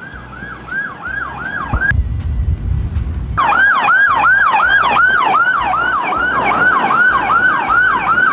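Police car siren in a fast repeating yelp, each note sweeping down in pitch, about three a second. It breaks off about two seconds in and comes back louder.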